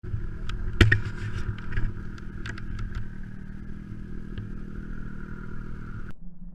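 Snowmobile engine running steadily, with several sharp clattering knocks in the first three seconds. The higher part of the sound cuts off suddenly near the end, leaving a lower hum.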